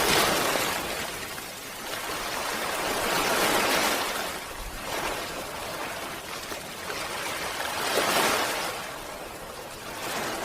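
Small sea waves washing onto a beach, the surf noise swelling and fading every four to five seconds.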